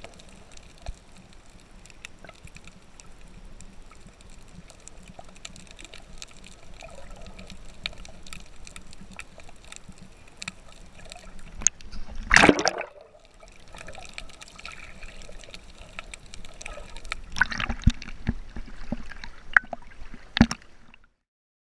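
Water trickling and gurgling close to the microphone, full of small clicks, with a loud rush of water about halfway and a few louder splashes near the end before the sound cuts off suddenly.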